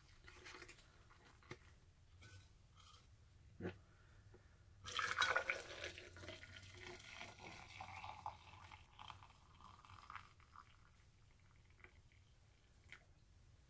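Water poured from an electric kettle into a thermos cup over a tea bag and mint leaves. The pour starts suddenly about five seconds in, loudest at first, and tapers off over the next several seconds. Before it come a few faint handling clicks and a knock.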